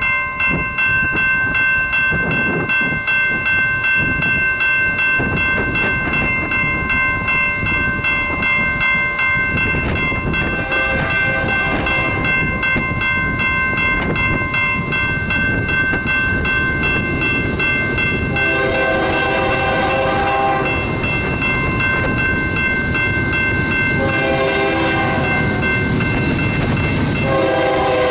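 Grade-crossing warning bell ringing steadily while an approaching BNSF GE C44-9W diesel locomotive sounds its horn in four blasts, each about two seconds long, the first about ten seconds in and the last near the end as the train nears the crossing.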